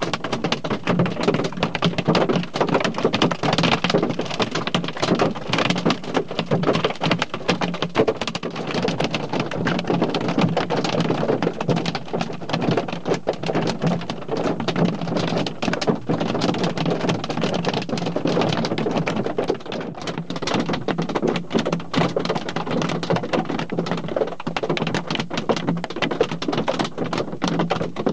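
Hail falling: a dense, steady patter of hailstones striking, thick with sharp clicks that keep up without a break.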